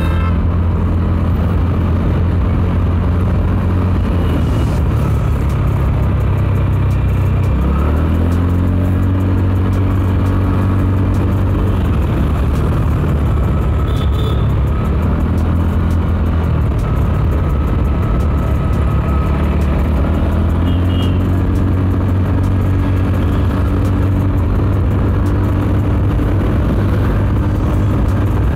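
A road vehicle's engine running under way, with steady road and wind noise. The engine note rises about eight seconds in, eases off and comes back up, then rises again around twenty seconds.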